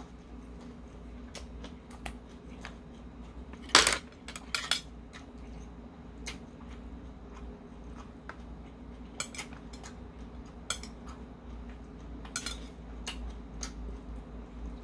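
Metal chopsticks clicking and scraping against a porcelain plate while food is picked up, in scattered clicks with the loudest about four seconds in, over a steady low hum.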